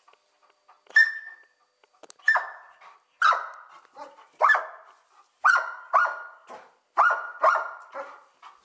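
A dog barking about eight times in an uneven run, some barks coming in quick pairs.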